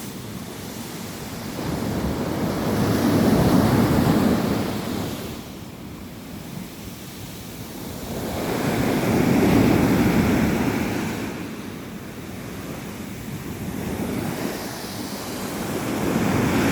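Rough sea surf breaking on the shore of a small cove, the waves swelling and falling back in slow surges, two big ones peaking a few seconds apart, with wind on the microphone.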